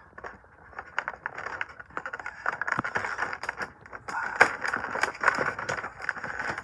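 Packaging being handled in an unboxing: a busy run of rustling, scraping and clicking that grows busier about four seconds in.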